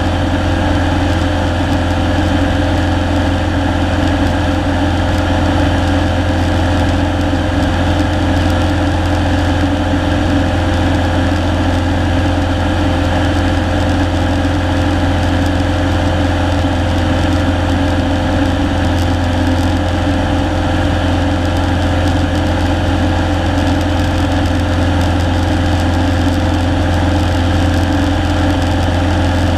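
Single-engine Cessna's piston engine and propeller droning steadily in flight, heard from inside the cockpit: a strong low hum with a steady higher tone over it, unchanging throughout.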